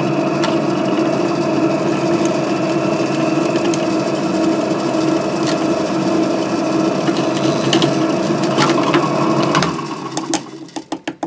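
Drill press running steadily as its twist bit bores through a short piece of wooden dowel. The motor stops just under ten seconds in, followed by a few light clicks.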